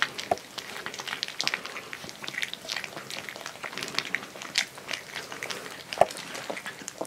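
Three-week-old Siberian Husky × Alaskan Malamute puppies eating water-softened kibble from a plate: a dense run of wet smacking, lapping and chewing clicks, with one louder knock about six seconds in.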